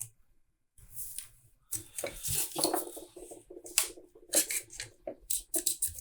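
Clicks, taps and light clatter of small plastic and metal parts being handled and pried at during a cordless impact wrench teardown.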